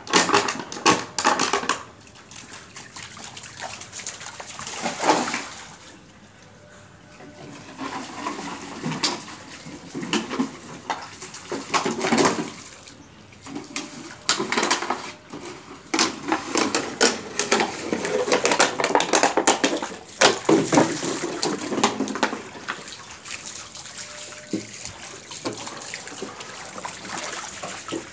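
Water splashing and sloshing on a wet tiled floor as a husky plays in it, in irregular bursts with a quieter stretch a few seconds in.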